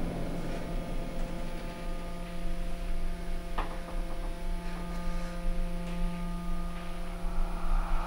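A steady low electrical-sounding hum made of several held tones, with a faint click about three and a half seconds in.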